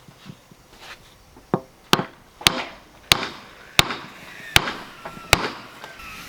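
About seven sharp hammer blows, roughly two-thirds of a second apart, each with a brief ring, driving a tight-fitting rudder mount up into its epoxied seat in the hull.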